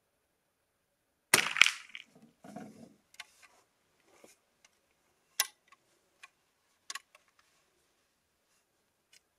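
A single .22 LR rifle shot about a second in, followed by a scatter of sharp metallic clicks and rattles from handling the rifle.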